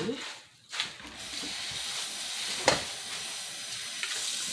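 Kitchen tap running steadily into the sink, turned on about a second in, after brief handling of the pot and leaves. A single sharp knock comes about midway.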